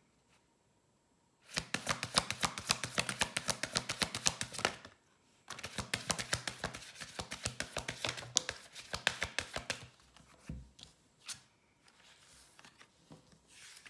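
Deck of oracle cards being shuffled by hand, in two runs of rapid card slaps, many a second: the first about a second and a half in for some three seconds, the second after a short pause and a little longer. A few separate taps follow near the end as cards are laid on the table.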